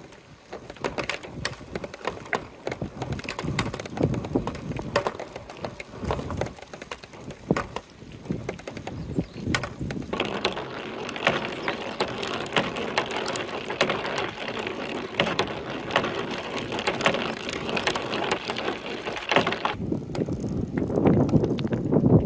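Plastic balls rolling one after another down plastic gutter channels, a running rattle full of small clicks and knocks. The rattle thickens about ten seconds in, stops shortly before the end, and gives way to a lower rumble.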